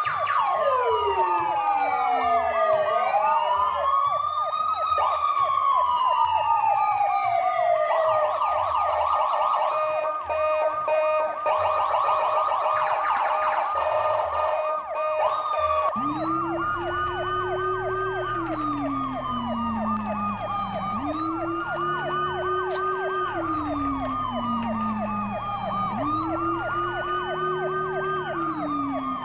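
Several electronic sirens sounding at once: a fast, steady warble under slow rising-and-falling wails. About halfway through a lower wail joins, rising and falling about every four seconds.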